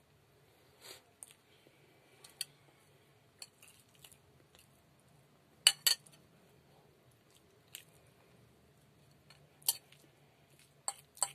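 Scattered small clicks and taps with quiet stretches between them, the loudest a quick pair of clicks about six seconds in.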